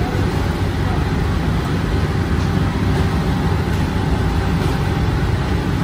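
Gas-fired revolving bread oven running with a steady, even low rumble and hiss from its burner flames and turning hearth.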